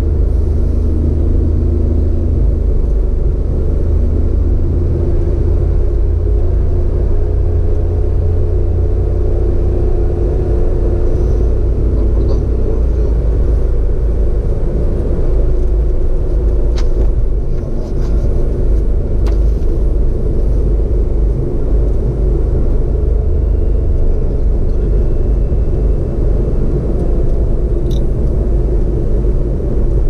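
Car driving along a paved road: a steady low rumble of engine and tyre noise. A few faint ticks come through a little past the middle and once near the end.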